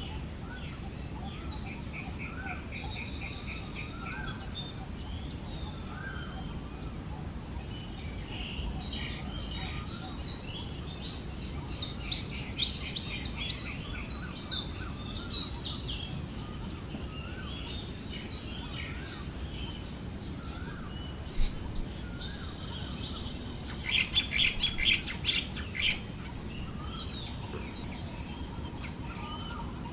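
Forest birds chirping and trilling in a steady chorus over a constant high insect-like buzz and a low rush of breeze, with a burst of loud, rapid chirps near the end.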